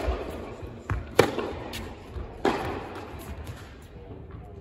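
Tennis rally on an indoor hard court: rackets hitting the ball and the ball bouncing, sharp pops a little over a second apart, each ringing on in the big hall.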